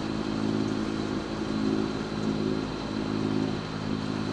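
A sailing yacht's engine running at a steady, even pitch while motoring.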